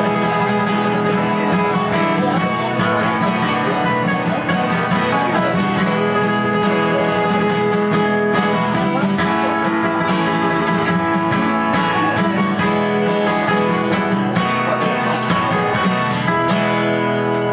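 Acoustic guitar strummed in a steady rhythm, playing an instrumental passage of a folk song with no singing.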